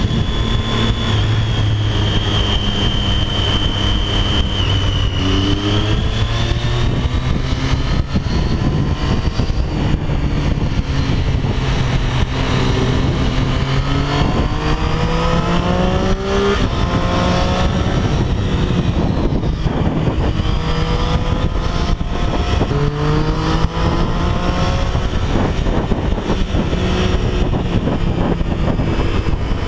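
Motorcycle engine running at highway speed, rising in pitch several times as the bike accelerates, over a steady rush of wind and road noise.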